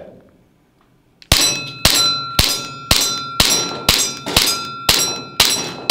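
VFC SIG AIR M18 gas blowback airsoft pistol firing nine shots at an even pace of about two a second, starting a little over a second in. Each shot is a sharp crack as the slide cycles, followed by a metallic ring.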